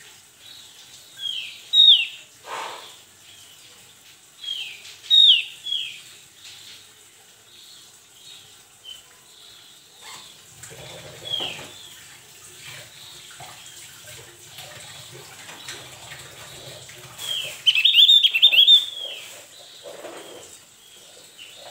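Javan grey-throated white-eye calling: short, clear notes that slide downward, given in twos and threes with gaps between. Near the end comes a fast, loud run of them.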